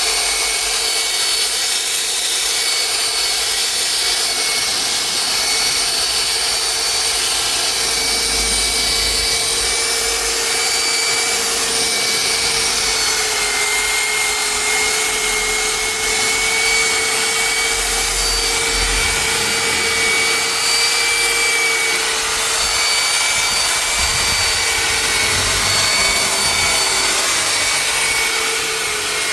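Handheld electric power tool working on paintwork: a steady motor whine over a rubbing hiss, its pitch dipping slightly at times as the pad is pressed on.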